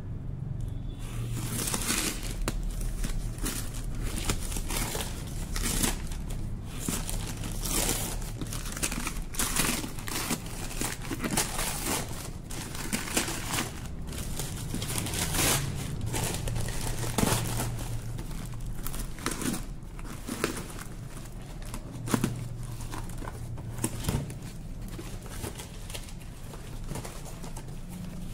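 Newspaper and taped paper wrapping being torn and crumpled by hand: irregular bursts of ripping and rustling paper.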